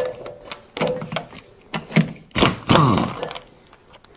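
Several separate clunks and clicks of metal bolts and a cordless tool being handled on the bulldozer's steel steering clutch housing, the first followed by a short ring. Near three seconds in there is a brief sound that falls in pitch.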